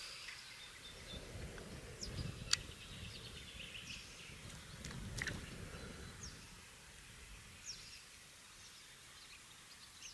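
Faint lakeside ambience with small birds chirping now and then, two sharp clicks a few seconds apart, and a soft low noise through the first half.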